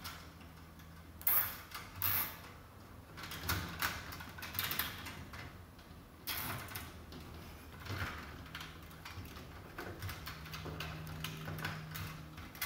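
Nylon cable ties being pulled tight around bundles of wire in a light fixture's sheet-metal channel: a series of short ratcheting zips with handling rustles of the wires.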